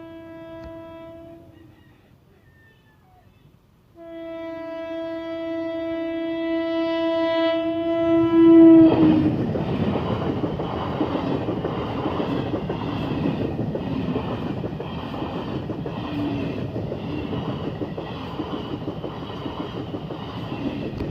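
Locomotive horn sounding a short blast, then a long blast of about five seconds that grows louder and drops slightly in pitch as the train arrives. The train then rushes past at high speed, a loud steady rumble of wheels on rails that carries on until the sound cuts off at the end.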